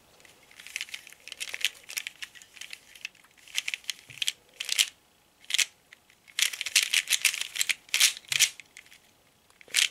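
Plastic 3x3 speedcube being turned by hand: quick runs of clicking and clacking as the layers snap round, executing a Ga-perm algorithm, with a couple of short pauses.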